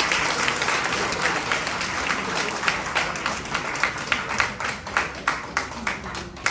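Audience applauding, the dense clapping thinning out to scattered separate claps and fading near the end.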